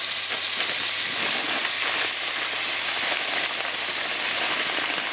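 Chopped vegetables sizzling in hot oil in a stainless steel frying pan: a steady, even hiss with faint crackles, as peas are poured in near the end.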